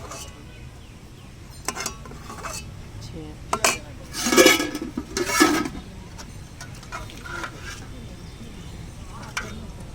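Dishes and utensils clattering and clinking in a handful of short knocks, loudest in a cluster about four to six seconds in, over a steady low background rumble.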